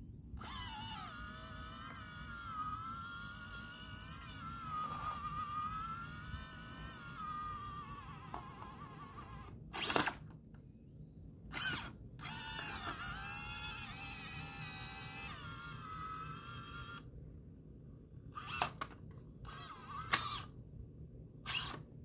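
Brushless motor of an Axial SCX24 micro rock crawler whining under throttle, its pitch rising and falling as the truck climbs over rocks. The motor runs for about nine seconds, a short loud crack comes about ten seconds in, then it runs again for about five seconds and ends with a few short throttle blips.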